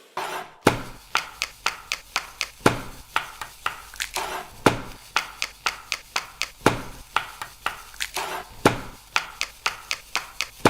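Quick, sharp taps and clicks of kitchen utensils and surfaces, several a second in a rhythmic pattern, with a louder hit about every two seconds.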